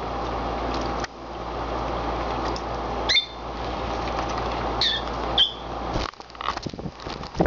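Rosy-faced lovebirds bathing in a shallow dish of water, splashing and flapping their wet wings in a steady spatter. Three short high chirps come about three, five and five and a half seconds in, and there are scattered light taps near the end.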